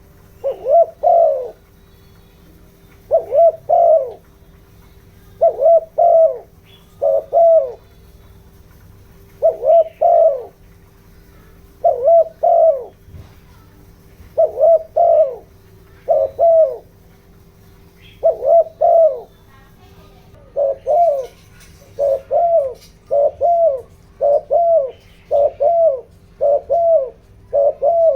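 Spotted dove cooing in repeated phrases of two or three notes. The phrases follow one another faster from about two-thirds of the way through, the rapid cooing used by decoy doves to provoke a wild dove. A faint steady hum runs underneath.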